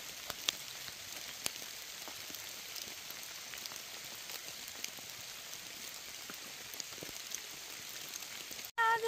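Steady rain falling through the forest, an even patter with scattered individual drops ticking close by.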